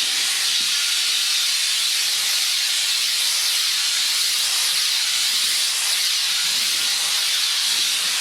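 Kärcher SC3 Premium steam cleaner jetting steam in a steady, continuous hiss.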